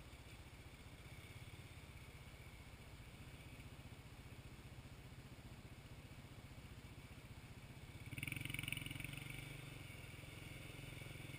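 Faint Honda TRX 500 FA ATV engine running steadily at low revs as the quad works through a water-filled ditch, then growing louder about eight seconds in as it is revved up to pull out of the ditch.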